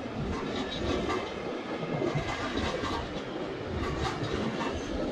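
Freight train wagons rolling past, their wheels clattering over the rail joints in a steady run of clicks.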